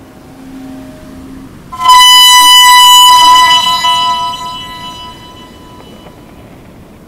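A loud, bright tone with many overtones starts suddenly about two seconds in. It holds for about a second and a half, then fades away over the next few seconds.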